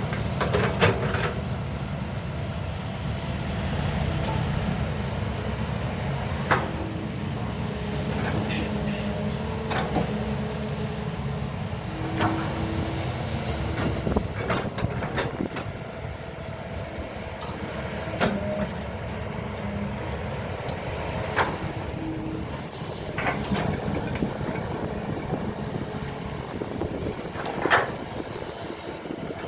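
Excavator diesel engine running steadily, with pitched whines that shift in pitch from time to time and short sharp clanks every few seconds.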